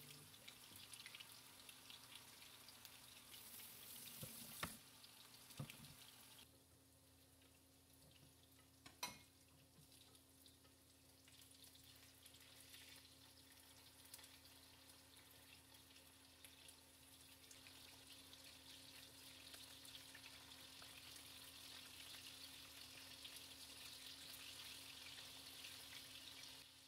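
Faint sizzling of cutlets frying in oil in a frying pan, with a few soft clicks of a spoon against the pan between about four and nine seconds in.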